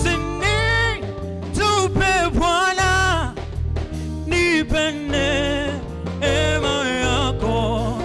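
Swahili gospel hymn sung with instrumental backing, the voices carrying a melody over a steady low bass line.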